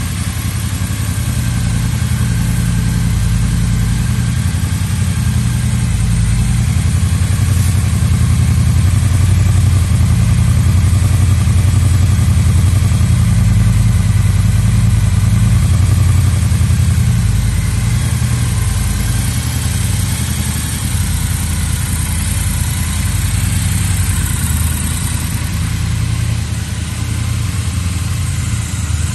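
A 2021 Triumph Bonneville T120's 1200 cc parallel-twin engine idling steadily at about 1,000 rpm through its stock exhaust.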